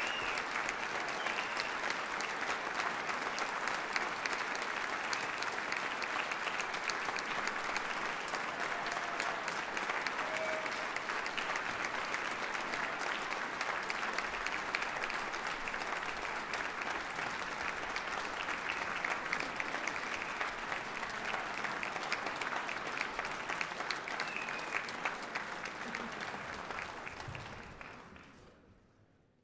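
Large concert-hall audience applauding steadily, the applause fading out near the end.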